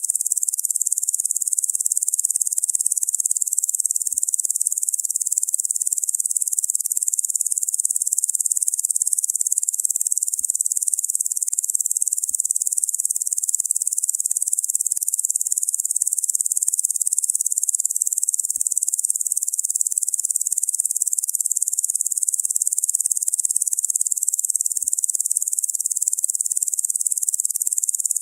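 Dense insect chorus: a steady, high-pitched shrill buzzing that never breaks.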